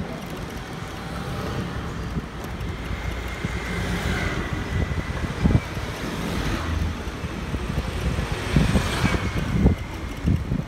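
Street traffic heard from a moving bicycle, with wind rumbling on the microphone. Vehicles pass close by twice, about four seconds in and again near the end.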